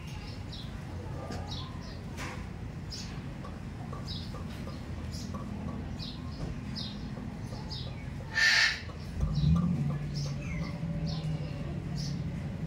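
Small birds chirping in short, high calls every second or so, with one loud, harsh bird call about two-thirds of the way through. Just after that call a low, steady hum starts and keeps on.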